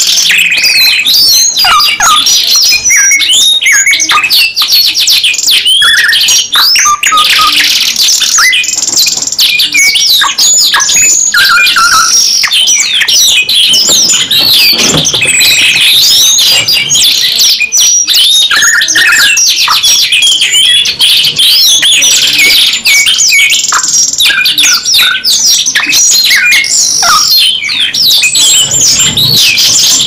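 Two caged songbirds singing at once, one of them a blackthroat (black-throated canary): loud, continuous overlapping song of fast trills, rolls and whistled notes with no pauses.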